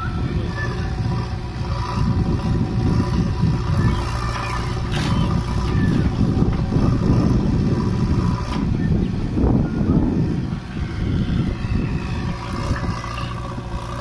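Diesel engines of a JCB backhoe loader and a Mahindra Arjun 555 DI tractor running steadily while the loader's bucket swings and tips soil into the tractor's trolley.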